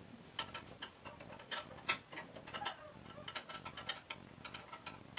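Ratchet socket wrench clicking in irregular runs as the nuts holding an LPG carburetor onto a Honda GX160 water-pump engine are tightened.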